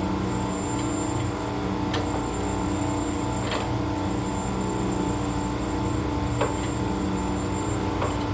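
Isuzu 4JJ1 four-cylinder turbodiesel engine running steadily, with a few faint clicks over it.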